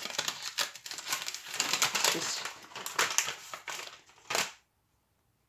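Pink gift bag crinkling and crackling as hands peel open its sticker seal and pull it open, with many sharp crackles and one louder crackle near the end. The sound stops abruptly about four and a half seconds in.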